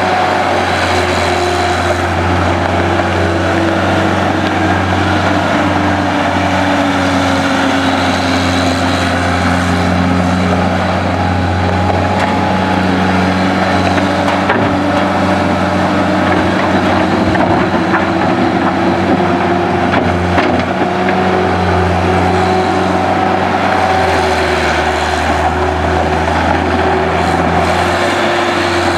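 John Deere 318D skid steer's diesel engine running steadily under a constant low drone, its pitch slowly rising and falling as the machine is worked.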